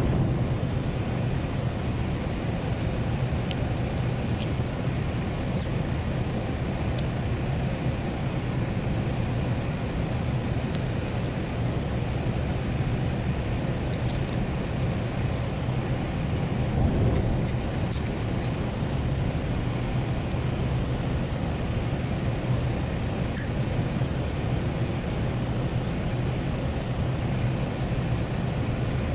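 Steady low background hum with an even rushing noise, broken by a few faint light clicks of small metal parts being handled.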